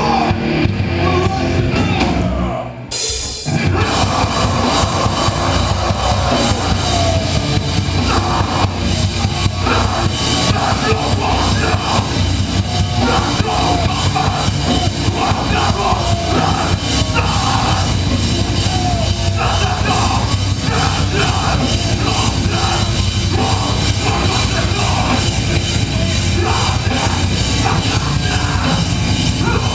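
A rock band playing live: electric guitars and a drum kit in a heavy rock style. About three seconds in the music drops out for a moment, then the full band comes back in.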